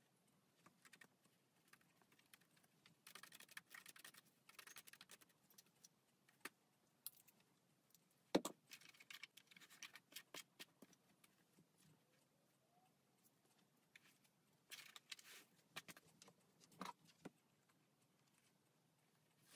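Faint handling sounds: scattered light clicks and short rustles of hands and a comb working through the hair of a lace wig on a mannequin head, with one sharper knock near the middle.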